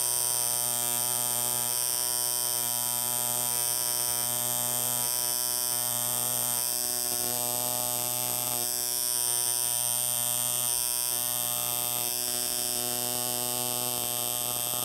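Electric coil tattoo machine buzzing steadily as its needle tattoos an identification number into a rat's tail; the buzz cuts off sharply at the end.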